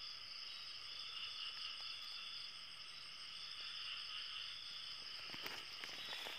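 Night chorus of insects: steady high trilling, one part swelling and fading roughly every second or so. A few soft rustles of leaves near the end.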